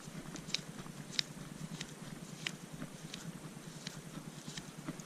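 Faint, irregular little clicks and ticks as a twist-on BNC connector is screwed by hand onto the stripped end of an RG59 coaxial cable.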